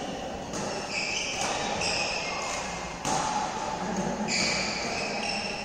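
Badminton rally: two sharp racket strikes on the shuttlecock, about half a second in and about three seconds in, echoing in a large hall, with footsteps and several high squeaks from the court.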